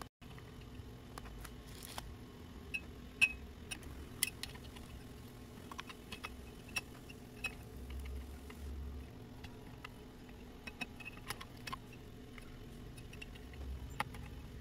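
Scattered small clicks and taps of cable connectors and small metal parts being handled while cables are fitted inside a fanless PC case, over low steady background noise. The sharpest clicks come about three and four seconds in.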